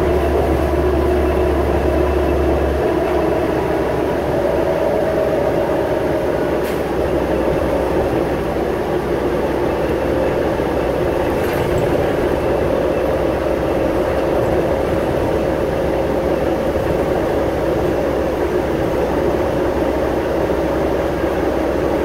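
Cabin of a New Flyer C40LF natural-gas transit bus under way: steady engine drone and road noise, with the rear axle gears whining in a steady tone.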